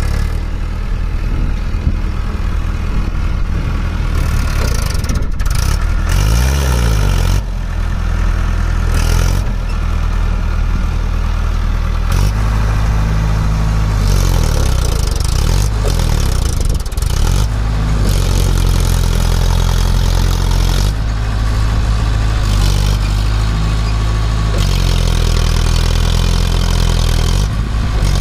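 Mahindra Arjun 555 tractor's diesel engine working hard under heavy load as it tows three other tractors. The engine note rises and falls several times as the driver revs it and the rear tyres dig in.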